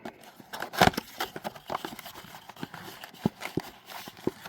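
Trading card packs and boxes being handled: a string of light taps and clicks with some rustling, the loudest tap about a second in.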